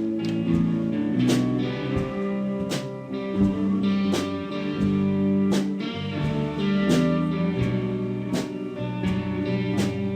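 Guitar-led band music without singing: held chords with a strong beat falling about every second and a half, and lighter strokes in between.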